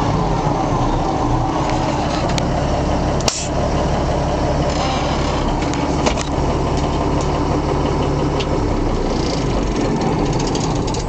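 A 1979 Kenworth W900's heavy diesel engine running steadily, with one sharp click about three seconds in.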